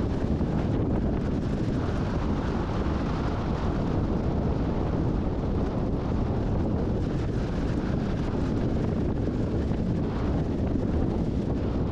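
Storm wind buffeting the microphone: a steady, low rumbling roar that holds even throughout.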